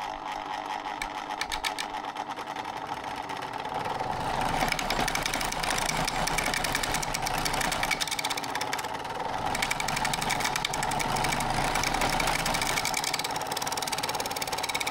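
Chisel scraping the rim of a spinning plywood disc driven by an old water-pump electric motor, truing the disc round: a rapid, steady chattering rasp over the motor's running hum, a little louder from about four seconds in.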